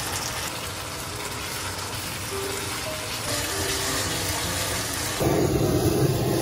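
Chicken and rice cakes in sauce sizzling in a wok as they are stirred with a spatula. About five seconds in, a handheld kitchen blow torch is lit over the pan and its flame gives a loud, steady rush, charring the food for a smoky fire flavour.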